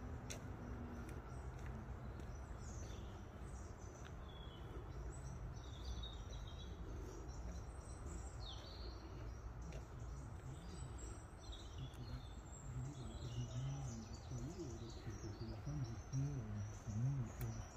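Small birds chirping and twittering in the roadside trees, short high calls scattered through, over a steady low outdoor rumble.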